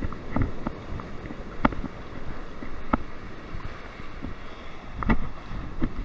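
Wind buffeting the microphone over breaking surf, with a few sharp knocks spread through it.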